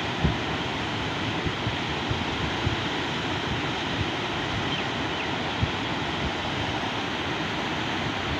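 Steady rushing of a muddy flood torrent pouring through a bridge's piers. A few brief low thumps of wind on the microphone come through, the clearest near the start and just past the middle.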